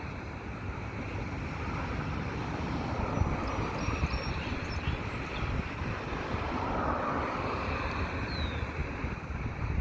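A train moving slowly past, heard as a steady low rumble mixed with wind on the microphone.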